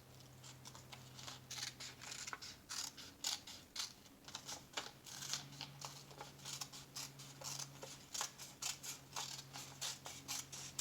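Scissors cutting paper into strips: a long run of short, sharp snips, about two or three a second.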